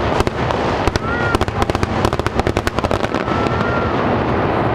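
Aerial fireworks going off: many sharp bangs and crackles in quick succession, thinning out after about three seconds.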